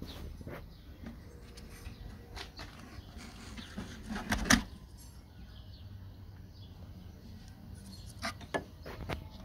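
Scattered clicks and knocks of hands and tools working on a car headlight's plastic housing, the sharpest about four and a half seconds in and a few more near the end, over a low steady hum.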